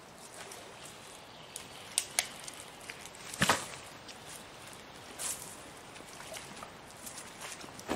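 Heavy bags being carried and put down close by: a couple of sharp knocks, then a heavy thump about three and a half seconds in as a bag lands on the ground, and a rustle a little later, over faint splashing of water in the shallows.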